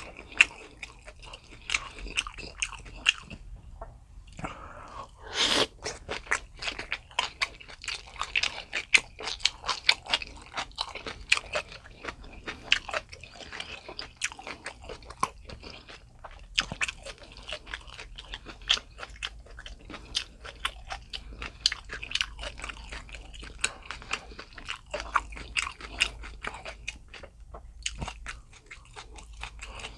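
Close-miked eating sounds: a person biting and chewing a meal of boiled pork slices (suyuk), a dense run of wet clicks and crunches. There is a short pause a few seconds in and another near the end.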